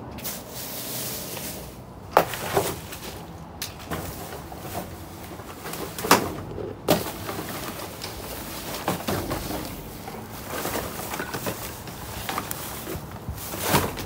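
Rummaging through trash in a metal dumpster: plastic bags crinkling and rustling as a long pole pokes among them, with several sharp knocks, the loudest about two and six seconds in.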